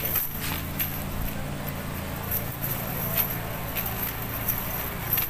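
Metal chain weights along the edge of a cast net clinking now and then as the net is lifted and shaken out, over a steady low hum.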